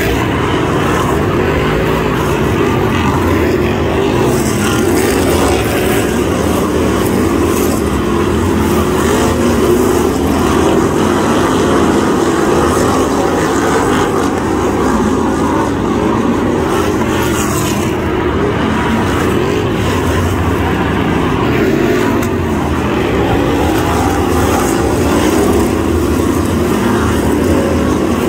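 A pack of BriSCA F1 stock cars racing, their V8 engines running loud and continuous, the overlapping engine notes wavering up and down as the cars go round.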